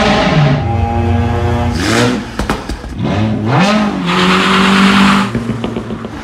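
A car engine revving hard as it pulls away, its pitch climbing, dropping at gear changes about two seconds in and again near three and a half seconds, then climbing once more. A loud rushing hiss joins in for about a second, four seconds in.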